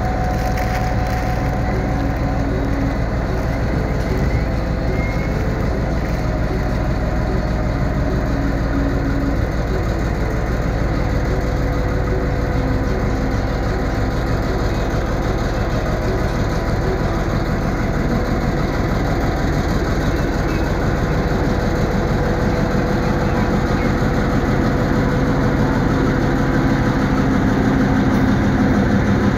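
Diesel locomotive engine running steadily as it moves a freight train off slowly, growing louder in the last few seconds as the locomotive draws level.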